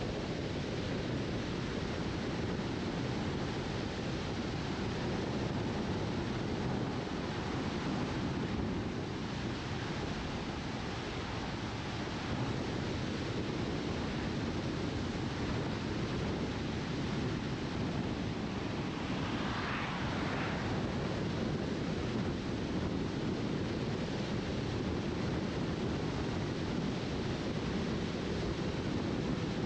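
Steady rush of wind and tyre noise from a car driving at road speed along a country road. A brief, brighter hiss rises and fades about twenty seconds in.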